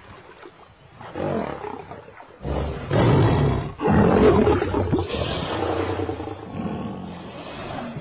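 Lion growling and roaring in a series of rough bouts, loudest around the middle.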